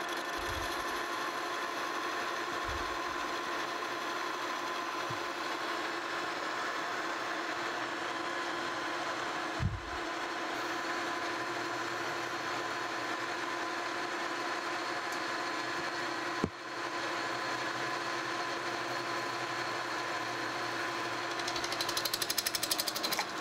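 Metal lathe running under a cut, its tool turning down the journal of a cane mill roller: a steady machine hum with a whine. A fast rattle comes near the end.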